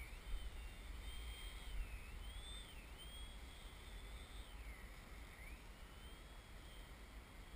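Faint, high-pitched whine of a radio-controlled model airplane's motor and propeller flying overhead, its pitch rising and falling repeatedly, with a deep dip about five seconds in. A low rumble of wind on the microphone runs underneath.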